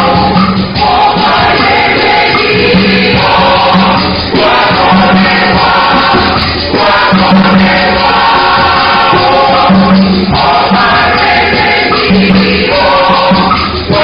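Church choir singing, loud and continuous, in phrases a few seconds long.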